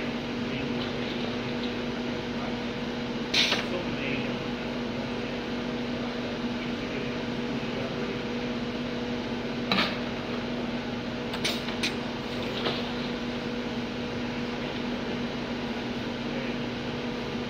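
Bottle-filling line running with a steady machine hum carrying two constant tones, broken by a few sharp knocks and clacks as plastic bottles are handled at the filler and conveyor, three of them close together about twelve seconds in.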